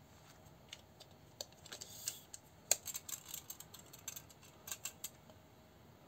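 A pocket tape measure being handled and its steel tape pulled out, making a string of light clicks and rattles with a brief scrape. The sharpest click comes about two and a half seconds in.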